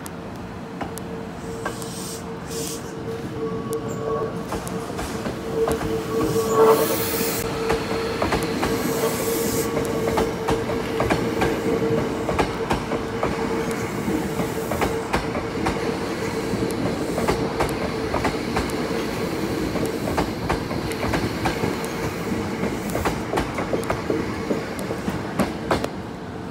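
Hankyu electric commuter train running past at close range: wheels clacking over rail joints under a steady whine, which is loudest about seven seconds in.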